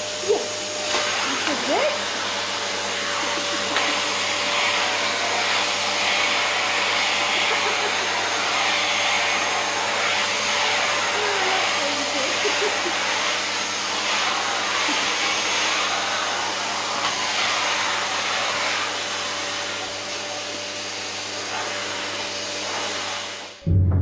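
Canister vacuum cleaner with hose and wand running steadily: a rushing hiss with a fixed whine over it. It cuts off suddenly just before the end.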